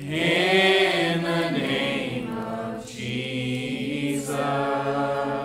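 Voices singing a slow worship song, holding long notes that change pitch every second or two.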